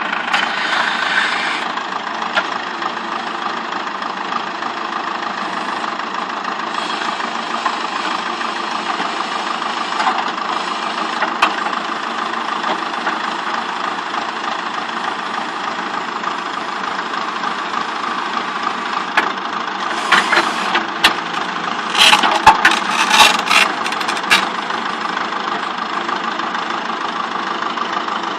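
Ursus tractor's diesel engine running steadily while its front loader lifts a bucket of lime over a spreader, with a short spell of sharp knocks and clatter about three-quarters of the way through.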